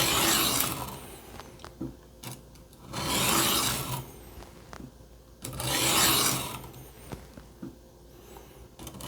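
Kitchen knife blade drawn across a wetted sharpening stone in slow slicing strokes, three rasping scrapes about a second long and roughly two and a half seconds apart, with light clicks between them. The edge is still being worked to raise a burr on thin, cheap steel.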